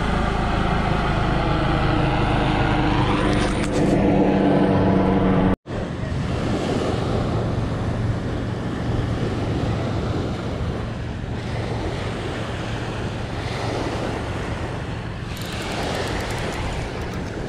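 A low-flying aircraft's engine running overhead, its steady pitch shifting slightly, cut off abruptly about five and a half seconds in. After that, small waves wash onto a sandy shore, with wind buffeting the microphone.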